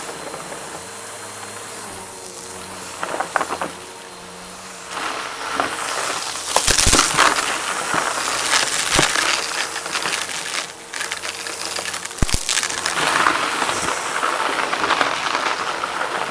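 Vacuum cleaner running and sucking up a crunchy mess-test mix, with crackling and sharp clicks as pieces rattle up through it over a steady motor hum.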